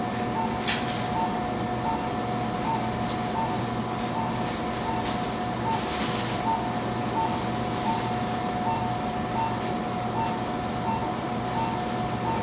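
Operating-room monitor beeping at an even pitch about twice a second, over a constant electronic tone and hum, with a few faint clicks.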